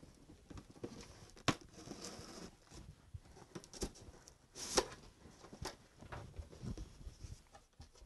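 Cardboard shipping box being opened by hand: flaps pulled up and cardboard scraping and rustling, with scattered light taps and a louder scrape about five seconds in.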